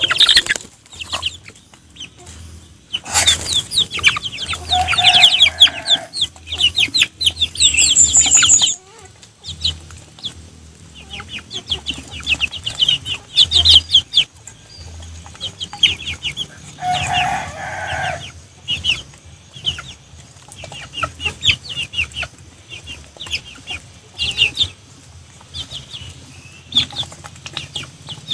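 Young chickens clucking and cheeping, with rapid pecking and dabbling as they and a Muscovy duck eat from a feed bowl. Two louder, brief flurries stand out.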